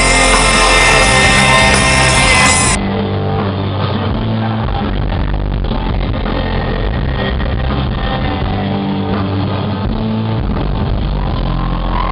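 Live rock band playing loud amplified music, heard from within the audience. About three seconds in, the sound suddenly turns duller as the higher tones drop away.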